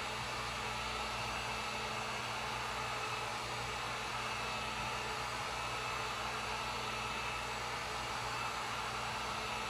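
Electric heat gun on its low setting running steadily: a constant airy hiss of the fan with a faint motor hum. It is warming the mirror glass to soften the factory double-sided tape behind it.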